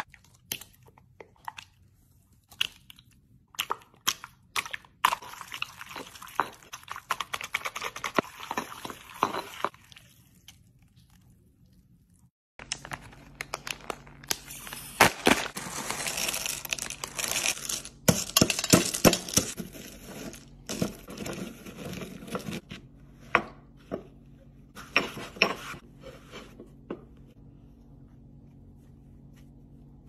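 Candy being worked in a granite mortar and pestle: wrapper crinkling as strawberry candies are poured in, crunching and grinding, and sharp taps of stone on stone, in short bursts with a quiet pause about ten seconds in. A faint steady hum runs under the second half.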